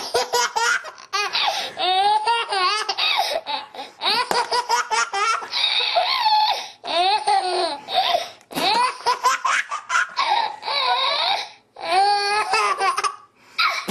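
A baby laughing hard: runs of quick, high-pitched laughs and drawn-out squeals, broken by brief pauses.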